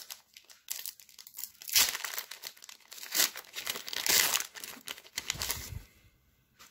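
Foil wrapper of a Pokémon trading card booster pack being torn open and crinkled by hand: a run of crackling tears, loudest about two, three and four seconds in, stopping about six seconds in.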